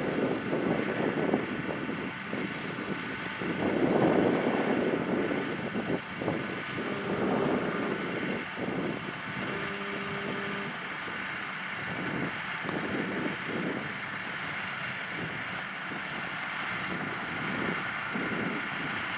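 Farm tractor running in the field with wind buffeting the microphone, the noise swelling and easing in gusts.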